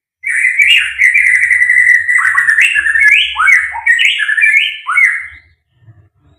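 White-rumped shama singing: a held whistled note that runs into a fast series of sweeping notes, each dropping then jumping back up, for about five seconds before it stops.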